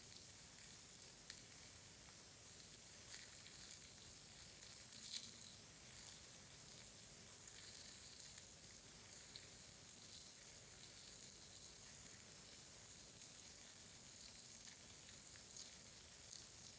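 Faint, soft crackling with scattered small clicks, an ASMR trigger made close to a sensitive microphone.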